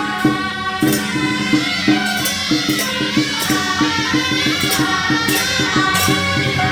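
Temple procession music: a fast, even percussion beat with bright metallic crashes every second or so, under a sustained melody.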